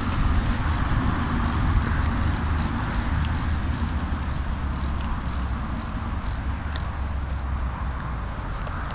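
Wind buffeting the camera microphone: a steady low rumble with frequent crackles.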